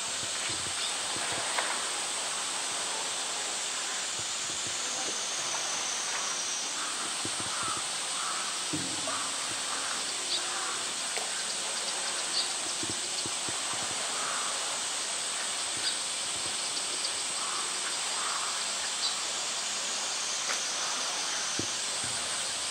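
Steady high hiss of outdoor ambience, with scattered faint clicks and a run of short distant calls through the middle.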